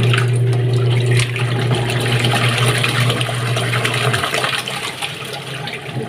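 Sharp ESW500 single-tub washing machine agitating a partly filled tub: the motor runs with a steady low hum while the pulsator churns the water, then the motor cuts out about four seconds in and the water keeps swishing. The pulsator is struggling to turn.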